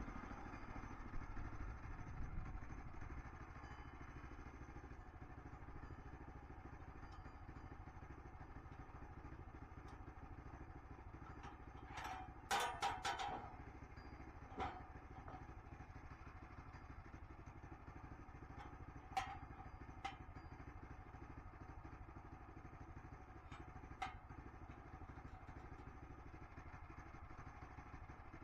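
An engine running steadily at low power. About halfway there is a short run of clattering, followed by a few single knocks.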